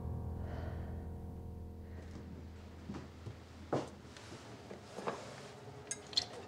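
A low sustained musical chord fading out over the first couple of seconds, then a few faint, short knocks and clicks of hands handling things at a stainless steel kitchen sink stacked with pans and plates.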